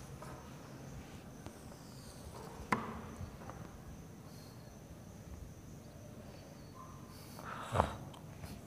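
Marker writing on a whiteboard, mostly faint strokes with two sharp taps against the board, one about a third of the way in and a louder one near the end, over a faint steady high-pitched hum.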